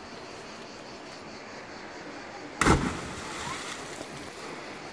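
A person hitting the river water after a cliff jump: one loud, short splash a little past halfway through, over a steady outdoor background hiss.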